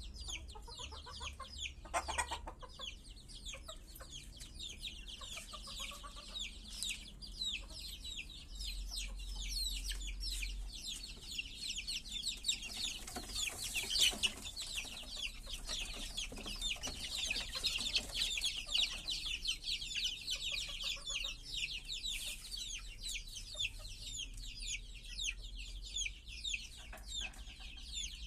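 A group of Indonesian native village chickens (ayam kampung) calling continuously, with many short, high-pitched calls overlapping.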